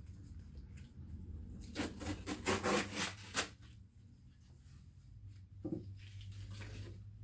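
Package being opened by hand: a burst of rough scraping and rubbing strokes of packaging material about two seconds in, lasting under two seconds, then softer rustling near the end, over a steady low hum.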